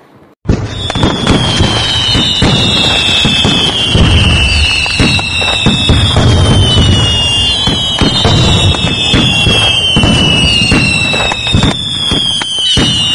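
Fireworks going off: a dense crackle of pops with falling whistles, one every second or two, overlapping one another. It starts suddenly about half a second in.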